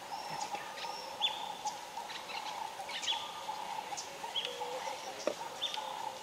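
Several birds calling: short, high whistled notes, some with a quick downward hook, coming every half second or so over a steady, lower background chorus.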